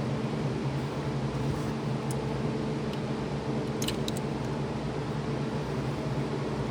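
A steady mechanical hum over an even hiss, with a few light clicks about two seconds in and again around four seconds in.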